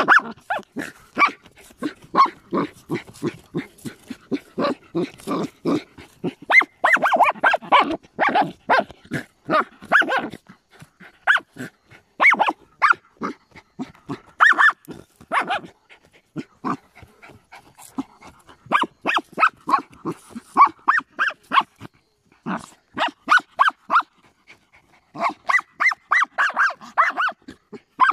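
A small hunting dog barking and yelping in quick runs of short yips while it digs at an armadillo in its burrow, with the scratch of dirt being clawed loose.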